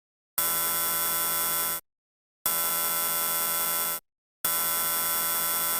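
Emergency alert broadcast signal: three harsh, buzzing electronic tones, each about a second and a half long, with short silent gaps between them.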